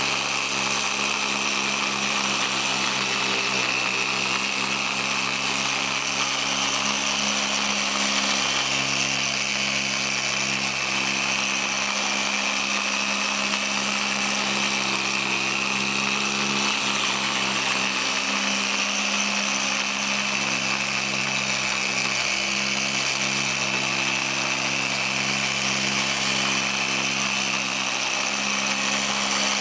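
Electric dual-action polisher running steadily at a middle speed setting, working polish over a table saw's table top: a constant motor hum with a high whine.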